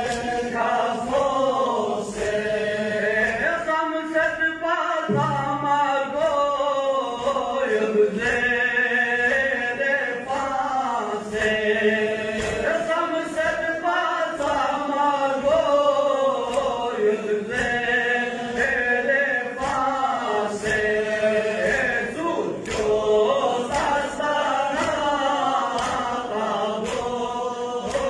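Men chanting a Balti noha, a Shia mourning lament, as a group in a melodic call, over a steady beat of sharp strikes.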